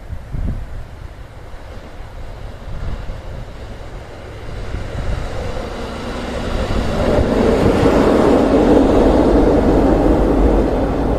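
A train approaching and passing, growing louder from about halfway through, over wind buffeting the microphone.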